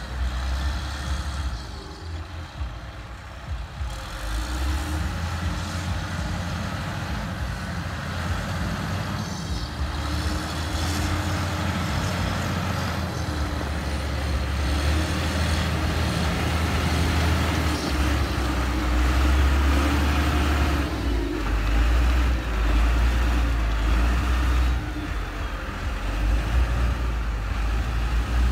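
LiuGong motor grader's diesel engine running under load as it grades mud, a steady low drone that grows louder over the second half as the machine comes closer.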